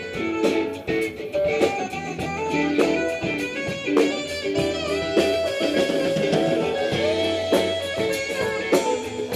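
Live band playing on an outdoor stage: electric guitar over bass and drums.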